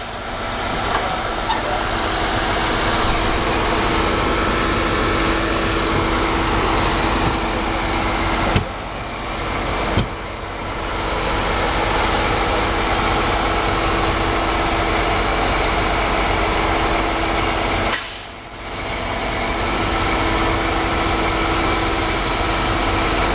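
Heavy diesel engines of a truck-mounted concrete pump and a ready-mix mixer truck running steadily during a concrete pour, with a constant hum. A brief sharp sound cuts through about eight and a half seconds in and again about eighteen seconds in.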